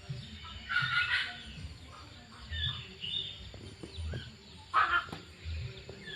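Birds calling: two short, harsh calls, one about a second in and one near five seconds, with faint high chirps between them.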